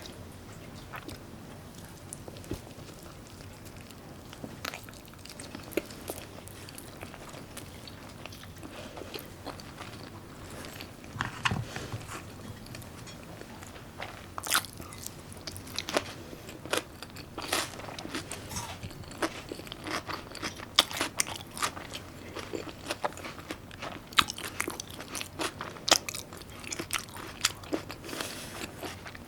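Close-up eating sounds of raw salmon and side dishes: chewing and biting with crisp, sharp crunches and wet clicks. They are sparse at first and come much more often in the second half.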